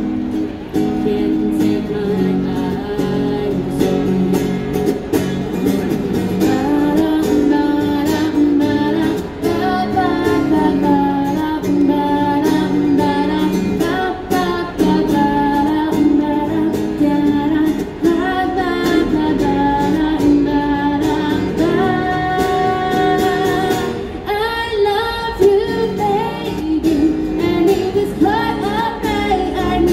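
A woman singing a pop song while strumming an acoustic guitar, both amplified through a small busking amplifier.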